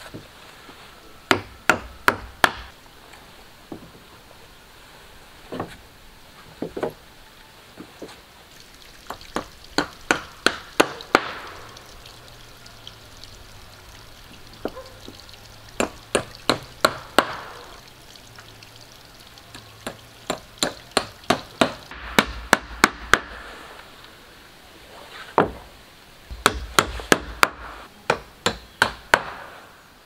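A hand tool striking wood in repeated bursts of quick, sharp blows, several a second, with pauses of a few seconds between the bursts.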